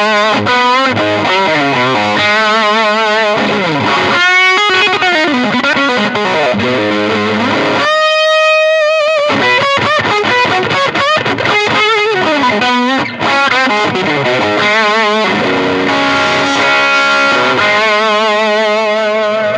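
Electric Stratocaster-style guitar played through a two-6L6, 40-watt Fat Jimmy Avionic tube amp driven by a gain pedal: overdriven single-note lead lines with wide vibrato and string bends, including a long held, wavering note about eight seconds in.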